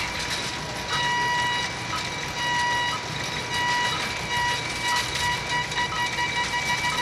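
Electronic science-fiction sound effect: a pulsing beep tone that sounds about once a second and then quickens near the end, over a steady rumbling hiss.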